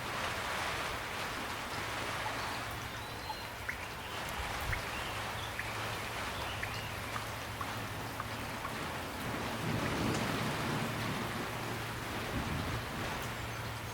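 Steady rain falling, with scattered drops ticking and a low rumble that swells about ten seconds in.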